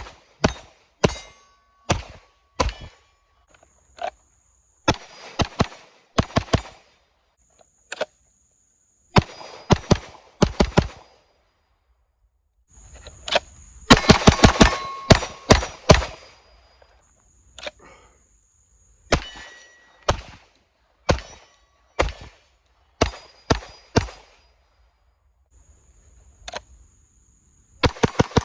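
Pistol shots fired at half-inch steel A-zone targets in quick strings of two or three, with one longer rapid string about halfway through; the steel rings after hits. A thin high steady tone comes and goes between the strings.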